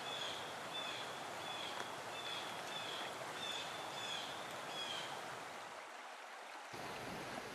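A small bird repeating a short, sharply falling chirp roughly every two-thirds of a second over the steady rush of a river; the chirps stop about five seconds in.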